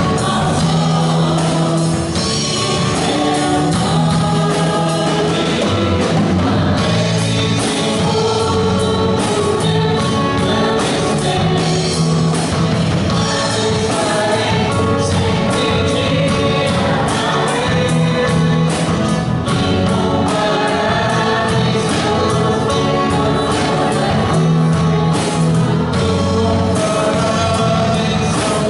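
Live gospel worship song: a man and a woman singing over a band of drum kit, guitars and keyboard, with a steady drum beat.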